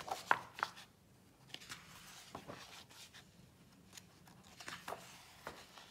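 Pages of a paper instruction manual being turned and smoothed by hand: scattered paper rustles and light flicks, the sharpest in the first second.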